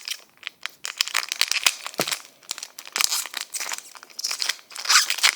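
Foil wrapper of a Pokémon trading card booster pack crinkling and tearing as it is handled and ripped open, a dense run of irregular crackles.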